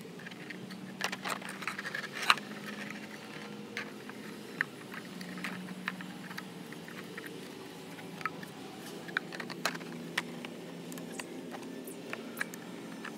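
Hands fitting parts into a plastic speaker enclosure: scattered small clicks and knocks of the panels, battery pack and wires being handled, with one sharper knock about two seconds in, over a low steady background hum.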